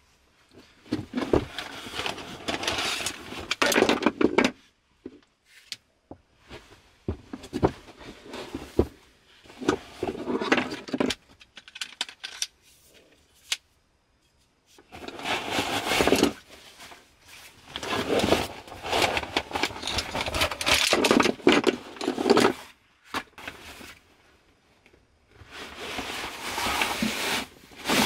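Metal frame parts of a folding camp cot clinking, rattling and scraping as they are handled and fitted together, with fabric rustling, in four spells of activity separated by short pauses.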